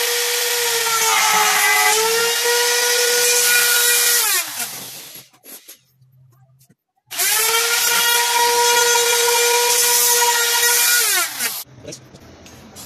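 Handheld palm router running at a steady high whine, its pitch sagging briefly about a second in as it cuts into the mahogany, then winding down with a falling pitch around four seconds in. After a short silence it starts again at full speed and winds down once more near the end.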